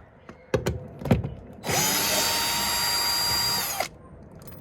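Electric drill-driver running for about two seconds to back out a door-panel screw, a steady whine that sags slightly in pitch just before it stops. A few short knocks come first as the bit is set on the screw.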